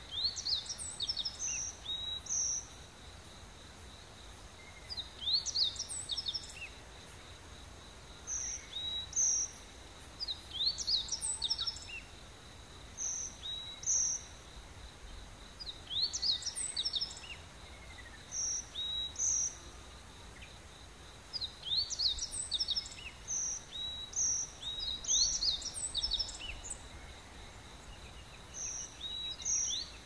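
Rainforest birdsong: a bird repeats a short, high phrase of quick rising notes ending in two or three clipped notes, every few seconds. A faint steady high tone runs underneath.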